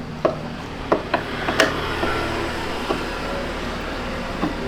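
Scattered clicks and light knocks of hand tools and metal parts being handled during scooter disassembly, over a steady low hum.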